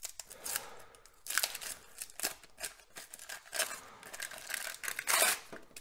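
Wax paper wrapper of a 1989 Donruss baseball card pack being torn open and crinkled by hand: a run of irregular crackles and rips, the loudest about five seconds in.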